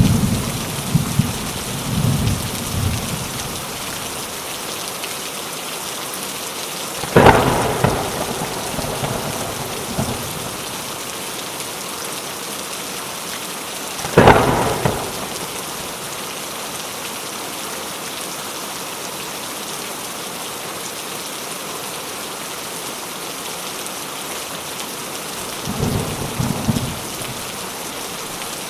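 Steady heavy rain hissing throughout a thunderstorm. Low thunder rumbles near the start and again near the end, and two sharp, loud thunderclaps about seven seconds apart fall in the middle.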